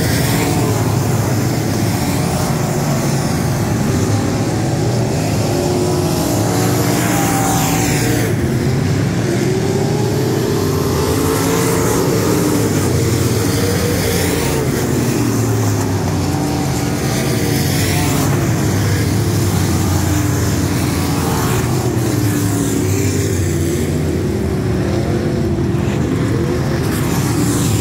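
A field of USRA Limited Modified dirt-track race cars running laps, their V8 engines loud and continuous. Every few seconds a car passes close by and its engine note swings up and down.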